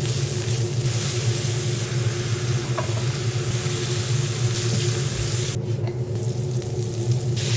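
Food sizzling on a hot hibachi griddle over a steady low hum. The sizzle drops away for a couple of seconds near the end, then comes back.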